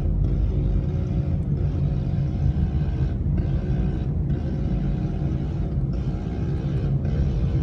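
Small motorbike engine running steadily on the road, a low rumble with an even hum.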